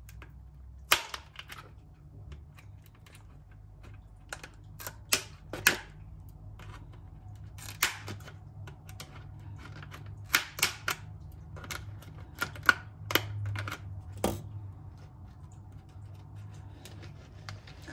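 Scattered light clicks and taps, irregularly spaced, from hands handling a plastic pot and orchid potting material while repotting a phalaenopsis, over a faint steady low hum.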